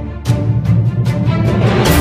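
Instrumental background music with a steady beat, growing fuller and louder near the end.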